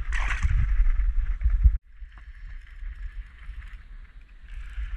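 A short splash and slosh of water as a black bream is let go into the river by hand, over a heavy low rumble. About two seconds in the sound cuts off suddenly and gives way to a quieter, steady hiss and rumble.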